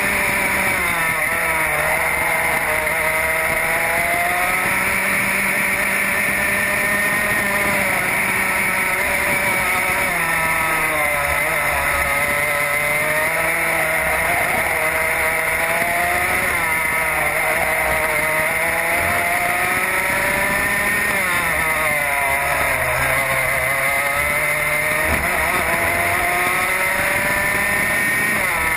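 Racing kart engine heard from on board at racing speed, its pitch dropping off into each corner and climbing back up on the exits, over and over through the lap.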